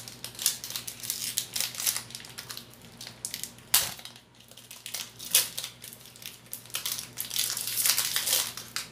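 Foil wrapper of a Pokémon trading-card booster pack crinkling and crackling as it is handled and torn open: dense runs of sharp crackles, with a few louder ones in the middle and a busy stretch near the end.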